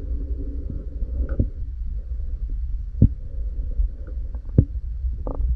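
Underwater ambience as heard by a submerged camera: a steady muffled low rumble, with three sharp knocks about a second and a half apart and a few fainter ticks.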